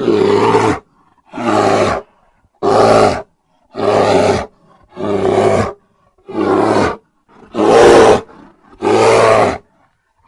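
A haunted-house sound effect: a deep, animal-like roar repeated about once a second, eight times in a row, each roar under a second long with a silent gap between.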